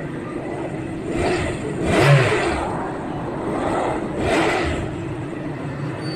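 Motor vehicle engines going by, the noise swelling and fading three times, loudest about two seconds in, over a steady low rumble.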